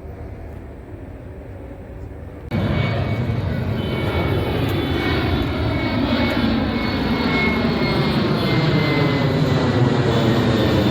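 Boeing 787 airliner's jet engines heard from the ground: a low rumble that jumps suddenly much louder about two and a half seconds in, then a loud steady roar with a faint whine slowly falling in pitch.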